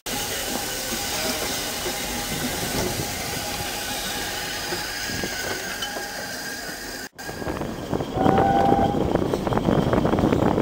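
Double Fairlie narrow-gauge steam locomotive moving slowly past at low level. After a cut about seven seconds in, there is the louder, steady clatter of a narrow-gauge train heard from inside a moving carriage, with a brief steady tone about a second later.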